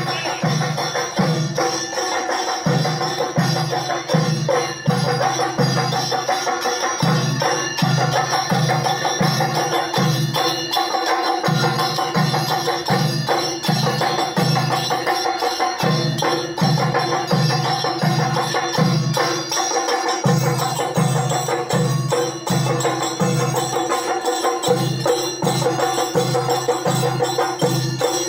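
Kerala chenda melam temple percussion: a troupe of chenda drums beating an even rhythm of about two heavy low strokes a second, with ilathalam cymbals ringing continuously over a steady held tone.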